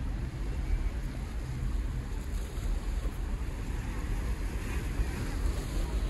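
Wind buffeting the microphone as an uneven low rumble, over a steady outdoor hiss of sea and distant traffic.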